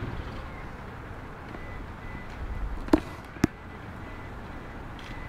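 Driver's door of a Toyota HiAce van being unlatched and opened: two sharp clicks about three seconds in, over a low steady rumble.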